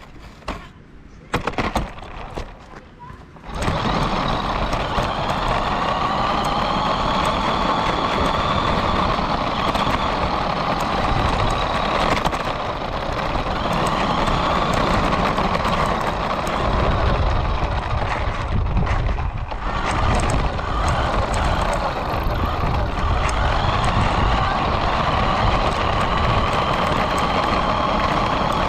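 Onboard sound of a remote-control car driving, starting about three and a half seconds in: its motor whine rises and falls in pitch with speed over a heavy rumble of the wheels on the road surface. The sound dips briefly past the middle.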